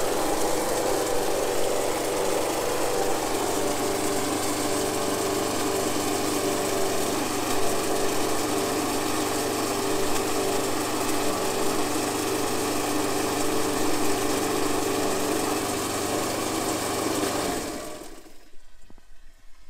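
Hyundai HYM460SP petrol lawnmower engine running steadily with the blade spinning while a garden hose feeds its deck washport, sluicing water and clippings out from under the deck. The engine shuts off and runs down near the end.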